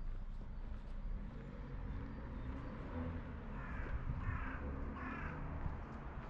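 A crow cawing three times in quick succession, each call short and harsh, over a low steady outdoor rumble.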